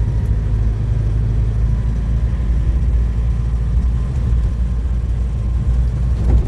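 Land Rover Defender Puma's 2.4-litre diesel driving along on beach sand: a steady, unbroken low rumble from the engine and drivetrain, running smoothly.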